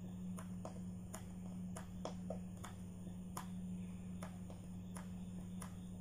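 Pencil drawing a dashed hidden line on paper along a drafting template: faint, irregular short ticks, about two a second, one for each dash. A steady low hum runs underneath.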